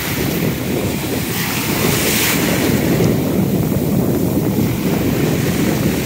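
Heavy ocean waves washing and breaking around the camera, with a louder rush about two seconds in, and wind rumbling on the microphone.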